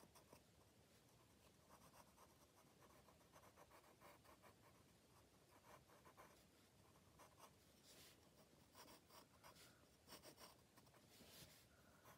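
A pencil scratching faintly on sketchbook paper in many short sketching strokes, a little louder about eight seconds in and again near the end.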